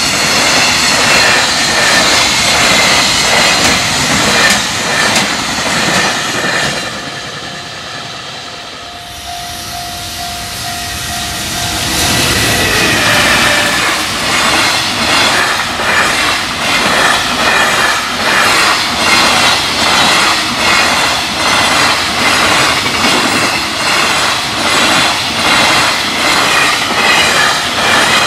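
Container freight trains passing at speed over a level crossing, their wagon wheels clattering in an even rhythm over the rail joints. About a third of the way through the noise dies away to a lull as one train ends, then the next train's wagons come through clattering.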